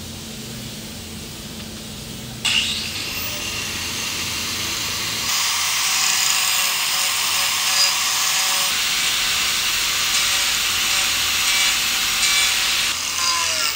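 Electric disc grinder fitted with a sanding pad switching on about two seconds in, its motor spinning up with a rising whine. It then bites into a wooden board, a loud, steady rasping grind of abrasive on wood that lasts until near the end.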